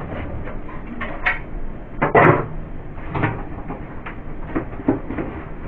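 Things being taken out of a fridge and set down: a run of irregular knocks and clatters, the loudest about two seconds in.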